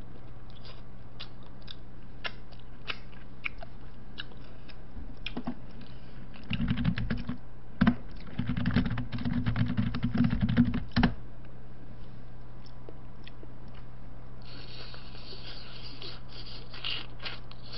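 Quiet eating and handling noise: scattered small clicks over a steady low electrical hum, with louder low rumbling and clicks from about six to eleven seconds in, and a soft hiss near the end.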